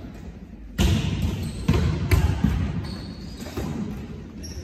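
A volleyball being hit and bouncing in a large sports hall: a run of sharp slaps and thuds, the first about a second in, each ringing briefly in the hall.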